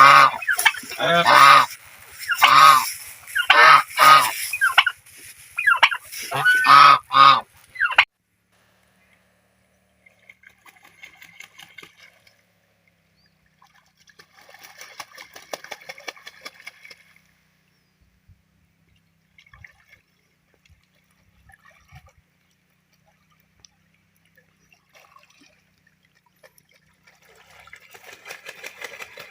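Geese honking loudly, call after call in quick succession, then stopping abruptly about eight seconds in; after that only faint, scattered sounds.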